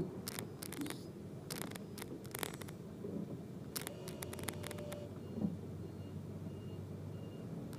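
Quiet cabin of a stopped Toyota Camry Hybrid: a low steady hum with scattered light clicks and a soft thump about five and a half seconds in, and a few faint short high beeps after it.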